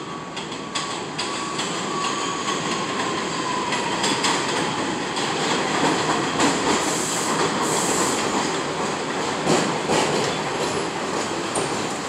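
An R62A subway train on the 6 line pulls in on the elevated tracks and runs past close by, with a rumble and the clack of wheels over rail joints. A motor whine falls slowly in pitch over the first few seconds, and a brief high squeal comes about two thirds of the way through.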